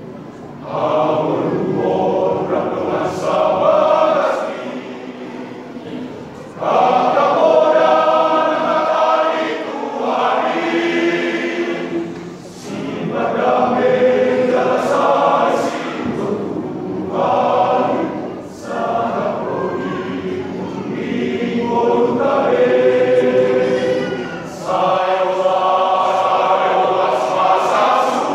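A men's church choir singing in parts, in phrases of several seconds separated by brief pauses for breath.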